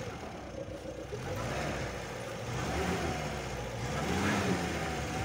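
VAZ 2104's engine revving in two surges and easing off between them as the stuck car is rocked back and forth in icy snow.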